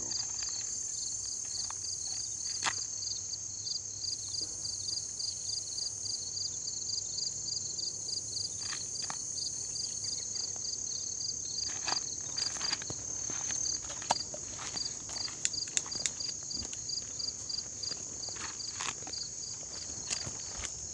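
Insects trilling outdoors: a steady high-pitched drone with a chirp repeating about three times a second. Scattered footsteps and rustling come in from about halfway through.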